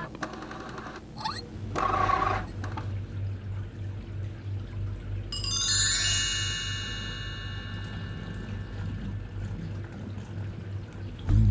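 Edited transition sound over a steady low drone: short bursts of static-like noise in the first two seconds, then a cascade of chime tones stepping down in pitch about five seconds in.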